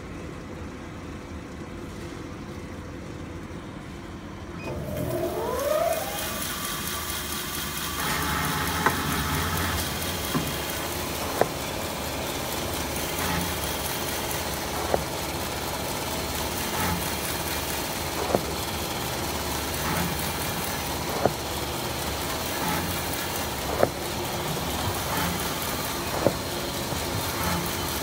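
Automatic band saw log-cutting machine for toilet paper and kitchen towel rolls: a quiet hum, then a rising whine as it speeds up about five seconds in, settling into a steady running noise. Over it come sharp clacks every two seconds or so as the machine works through the paper log.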